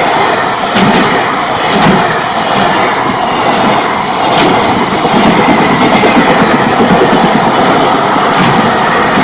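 A JR Freight train's wagons rolling past close by: a loud, steady rush of wheels on rail, with a few sharp clacks as the wheels cross rail joints.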